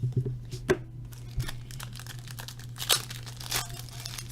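Plastic wrapping crinkling and tearing as a trading-card box is opened by hand, with scattered crackles and a couple of sharper snaps.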